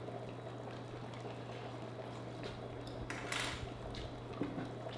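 Water boiling in a pot heated by an improvised prison 'stinger' immersion heater, a steady low bubbling, with one brief louder sound a little after three seconds in.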